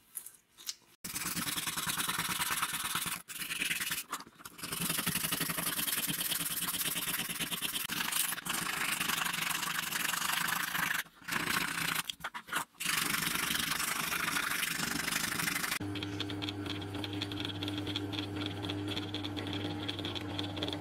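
Sandpaper rubbing back and forth over a wooden straight-razor handle in long steady strokes, with a few short pauses. About sixteen seconds in, a bench drill press motor takes over with a steady hum as its bit drills into the wooden handle.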